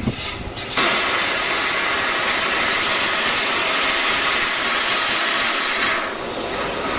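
Steam tank locomotive blowing off steam low down beside the wheels, a loud steady hiss that starts suddenly about a second in and eases off near the end.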